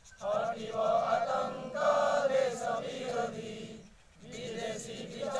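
Men's voices chanting an Odia sangha geet, an unaccompanied group song, together line by line, with a short break between lines about four seconds in.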